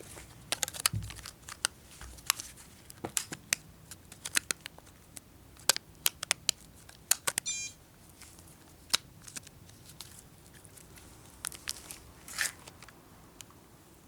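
Samsung D900i mobile phone being handled: irregular sharp clicks and taps, with a short electronic beep about seven and a half seconds in.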